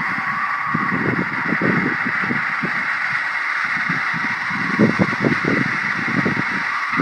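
Strong wind blowing in gusts: a steady hiss over an uneven, fluttering low rumble that swells and drops.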